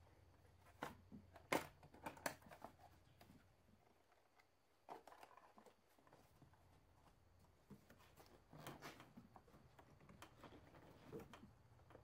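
Faint clicks, knocks and rustling of plastic engine-bay parts being handled by hand, with a few sharper clicks in the first couple of seconds and softer scattered handling noises later, over a low steady hum.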